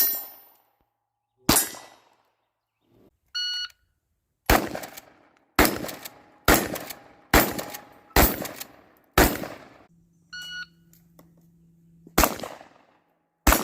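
A string of about ten gunshots. The middle run is six shots at roughly one a second, with pauses before and after. Two short ringing tones sound between the shots, about 3.5 s and 10.5 s in.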